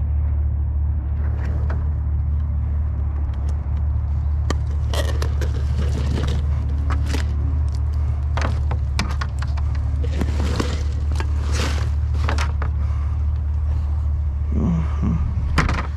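A vehicle engine running with a steady low rumble, and a run of irregular scrapes and knocks from about five seconds in until near the end.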